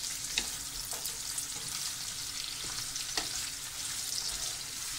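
Sliced bell peppers, carrots and onions sizzling in hot oil in a frying pan while being stirred and turned with a wooden spoon. The spoon knocks lightly against the pan a few times.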